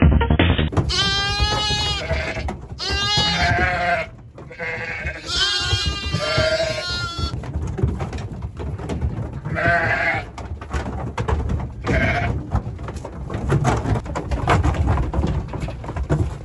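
Lambs and ewes bleating in wavering calls, several close together in the first seven seconds and fainter ones later, with frequent knocks and rattles in a metal livestock trailer.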